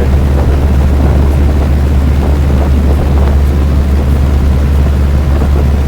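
Heat pump outdoor unit running in heat mode in below-freezing weather: a loud, steady low hum with a rough whooshing layer over it.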